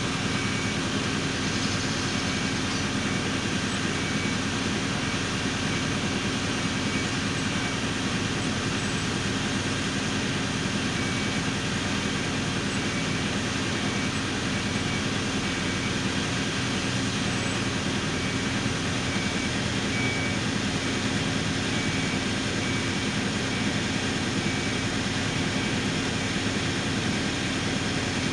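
Heavy road-repair machinery's diesel engine running at a steady drone, with no change in level.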